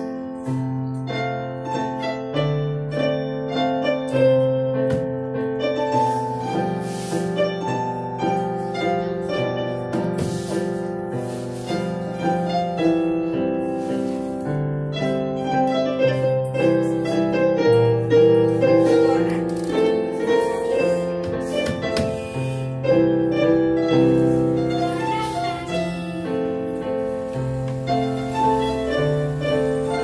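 A group of electronic keyboards played together by children, a piece with held bass notes changing every second or two under a melody line.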